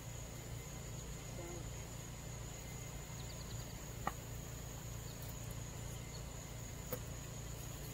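Faint outdoor ambience: a steady, high-pitched insect trill from crickets over a low hum, with one faint click about four seconds in.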